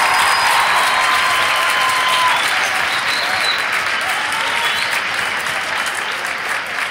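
A large crowd applauding in a school gymnasium, the applause slowly dying down.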